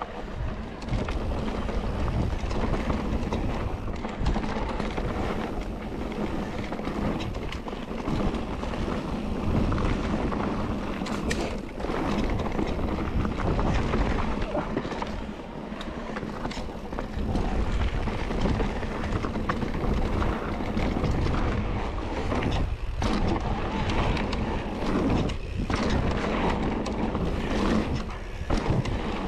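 Mountain bike riding a rough trail: continuous tyre roar and rattling of the bike, with wind buffeting the microphone.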